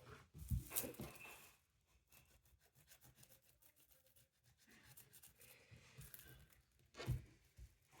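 Faint scratching of a colouring pen on paper, with a few sharp knocks in the first second and another about seven seconds in.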